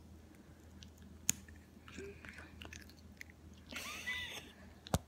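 A person biting and chewing a piece of frozen bubble gum, with small wet clicks and a couple of sharp clicks.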